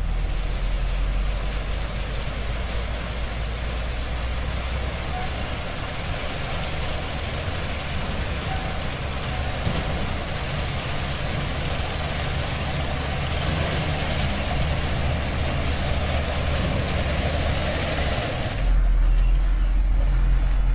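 A heavy vehicle's engine running steadily with a deep low rumble and a hiss of noise above it. Near the end the hiss drops away and the low rumble gets louder.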